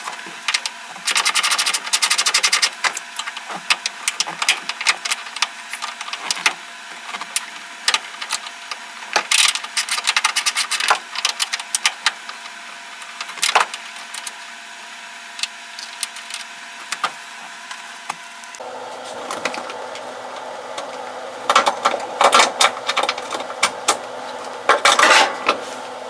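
Irregular metal clicks and rattles as the parking brake handle assembly and its cable end are handled and worked on under the dash of a 1963 Chevy C10 pickup. The clicks come in clusters, busiest at the start and again near the end.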